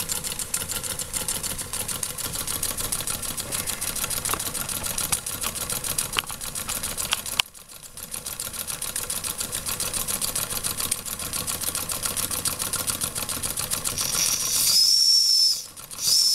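Weeden No. 14 toy steam engine running with a fast, even mechanical beat. Near the end its boiler's steam whistle sounds a high, steady note twice, with a brief break between the blasts.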